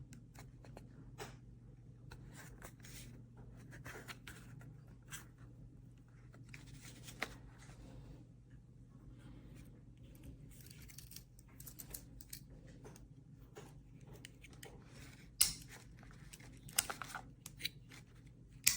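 Close handling noises: scattered small clicks and short rustles, with a few sharper snaps near the end, over a low steady hum.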